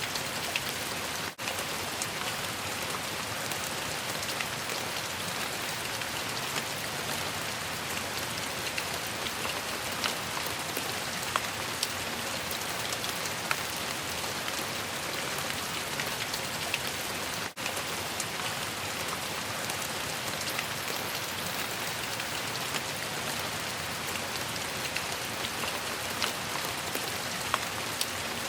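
Steady rain falling: a dense, even hiss with scattered sharper ticks of individual drops hitting a surface. It drops out for an instant twice, about a second in and again just past halfway.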